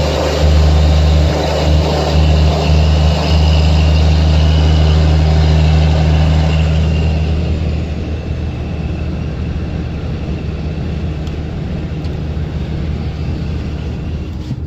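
Road vehicle noise heard from a moving car: a heavy, steady low engine drone with tyre and wind noise. It is loudest for the first six or seven seconds, then eases off a little.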